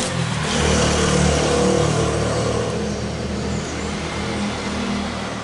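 Broth hissing as it heats in a pan of freshly fried shallots, with a wooden spatula stirring. A steady low hum runs underneath.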